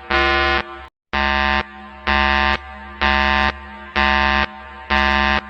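Emergency alert alarm tone: a harsh, buzzing pitched tone pulsing about once a second, with a brief silent break about a second in after which the tone changes slightly.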